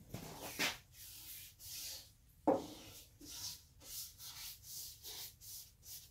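A paintbrush stroking grain filler onto a bare wooden piano cabinet panel: a run of hissy brush strokes, about two a second, with one louder knock about two and a half seconds in.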